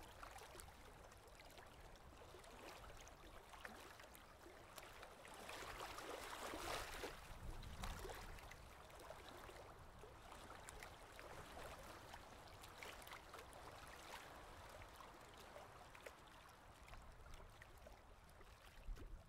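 Faint sea ambience: small waves lapping at the shore, a little louder about six to eight seconds in.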